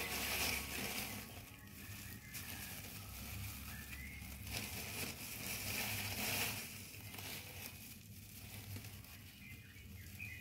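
Clear plastic gloves crinkling and coarse gravelly potting media rustling as hands pack it around a small cactus in a small plastic pot, in irregular bursts.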